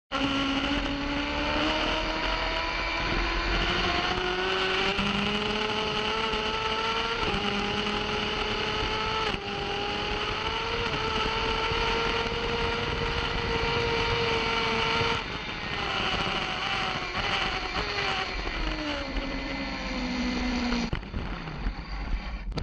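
Onboard sound of a racing motorcycle engine at high revs on track. The engine note climbs slowly with small steps between gears, then falls about fifteen seconds in as the bike slows and downshifts, rising briefly again near the end. Wind noise rushes underneath.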